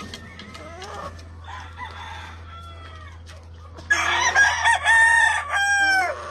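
Gamecock crowing loudly about four seconds in, a broken crow that ends on a long falling note. Fainter crows and calls from other birds come before it.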